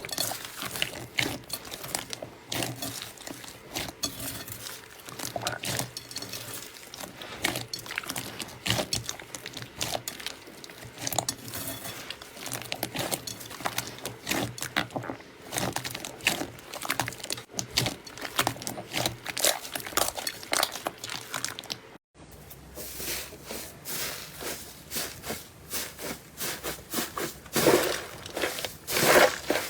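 Slime being squeezed and pressed, a dense run of small crackling clicks and pops. It breaks off for a moment about two-thirds through, then goes on with a louder, squishier crackle near the end.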